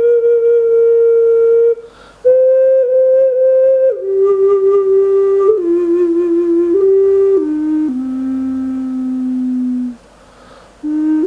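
Wooden ocarina with closed chambers, tuned to a C pentatonic scale, played as a slow melody of long held notes. The tune steps down to a low note held about two seconds near the end, with two short pauses between phrases.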